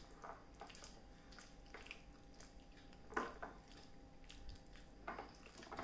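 Hands squeezing raw chicken pieces through a thick egg-and-flour marinade in a glass bowl: faint, intermittent wet squishing, with a few slightly louder squelches about three and five seconds in.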